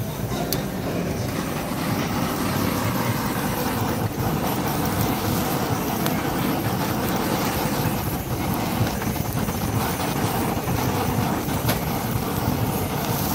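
Handheld butane torch on a gas canister blowing a steady flame while it sears grilled octopus skewers.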